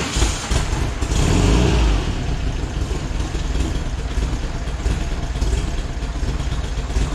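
Air-cooled VW flat-four engine (a 1968cc unit) running in the bus's rear engine bay, loudest in about the first two seconds, then settling to a steady idle.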